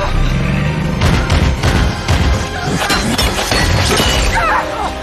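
Film action sound mix: loud crashes and impacts over a low rumble, under a dramatic music score, with gliding high tones near the end.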